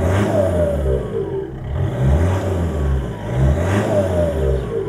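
Ford Focus Mk2's 2.0 four-cylinder turbodiesel revved lightly in three short blips with the car standing, each rev swelling and falling back with a faint falling whistle.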